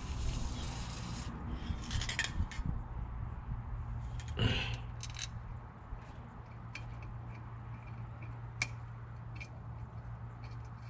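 Small metal clinks, scrapes and rubs of bolts and fittings being handled and worked in by hand in a heavy diesel truck's engine bay, with a short hiss in the first second and a louder knock about halfway. A steady low hum runs under it from about halfway on.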